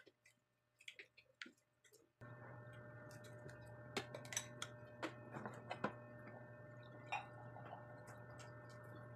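Faint close-up eating sounds: scattered wet clicks and smacks of chewing and of fingers picking at food. About two seconds in, a steady low hum suddenly comes up underneath.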